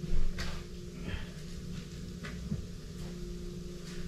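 Steady low electrical hum of a household appliance, with a few light knocks and clicks of a container and objects being handled, the first about half a second in.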